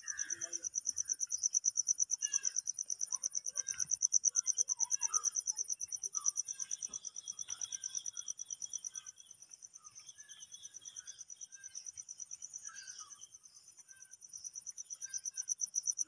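Insects, such as crickets, chirping in a fast, even, high-pitched pulse that runs throughout, dropping somewhat in level partway through and rising again near the end. Faint, scattered short calls sound underneath.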